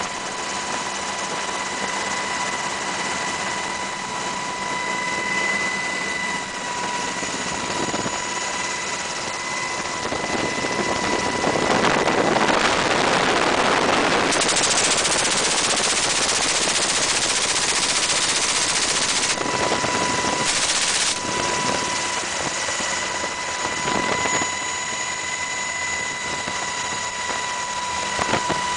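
MH-60R helicopter running with a steady high whine, heard from its open cabin door. From about 12 s a door-mounted GAU-21 .50-calibre machine gun fires long, fast bursts into the sea for several seconds, with a short further burst around 20 s.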